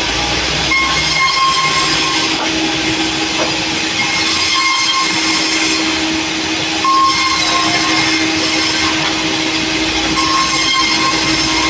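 Sawmill running and cutting through a hardwood log: a loud, steady machine drone, with a higher whine from the blade in the cut that comes and goes four times.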